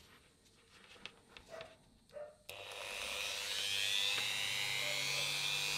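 Handheld rotary tool fitted with a brass wire brush, switched on about halfway through and running with a steady high whine that rises slightly in pitch. Before that, a few faint handling clicks.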